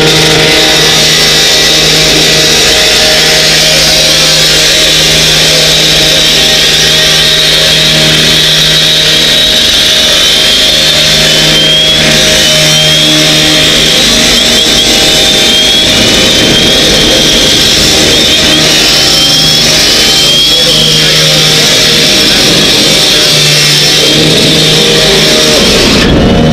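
An engine running steadily and loudly. Through the middle there is a series of short rising chirps, about one a second.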